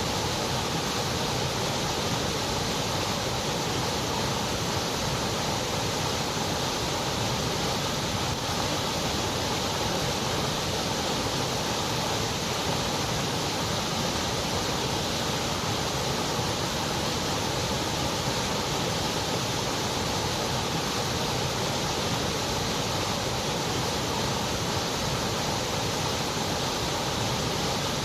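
Continuous white noise: a steady, even hiss that never changes.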